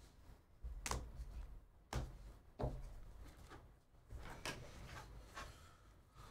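A stack of baseball trading cards being flipped through by hand: soft sliding and rubbing of card on card, with about five sharp flicks at uneven intervals as cards are moved to the back of the stack.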